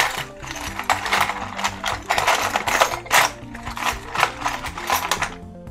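Irregular clicks, taps and scrapes of a solid-state drive's casing being handled and turned over, with steady background music underneath.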